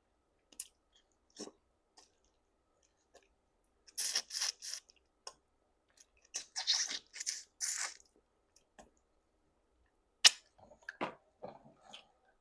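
A person chewing food close to the microphone, in short noisy bursts: a cluster about four seconds in, a longer run from about six to eight seconds, and a sharp click about ten seconds in.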